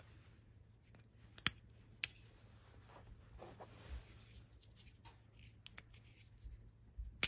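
Spyderco folding knives being handled: a few sharp metallic clicks as blades snap open or shut and locks engage, the loudest about a second and a half in, another half a second later and one near the end, with soft rubbing and handling between.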